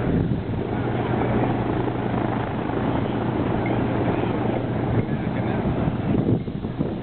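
Distant formation of P-47 Thunderbolts, their Pratt & Whitney R-2800 radial engines giving a steady low drone overhead.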